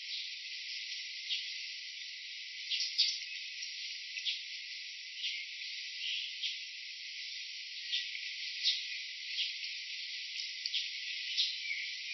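Steady high insect hiss with short, sharp clicks or chirps scattered about once a second.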